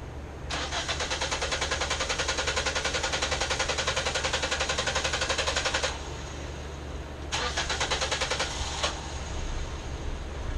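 2006 Nissan Sentra 1.8L four-cylinder engine cranking on its starter motor in a fast, even rhythm for about five seconds without catching, then a second crank of about a second and a half, also without starting. This is the long crank time the car suffers from, put down to a failing fuel pump.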